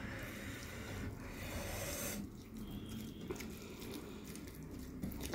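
Fingers squishing and mixing rice with chicken curry gravy on a plate, a soft wet squelching.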